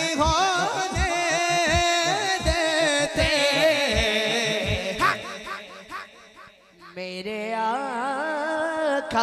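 Naat sung by a male reciter: a long, ornamented vocal line over a steady low beat, which stops about four and a half seconds in; a held, steady note follows near the end.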